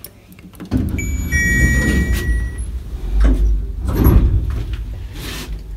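Apartment-block lift: the doors slide and the car runs with a low rumble, starting suddenly just under a second in and swelling a couple of times. A steady electronic beep sounds about a second in and lasts a second or so.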